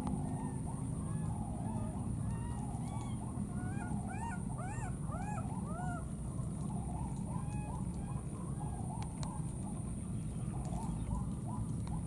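Short calls from animals, each rising and falling in pitch, scattered through the sound with a quick run of four or five about four to six seconds in. A steady high whine and a low outdoor rumble run underneath.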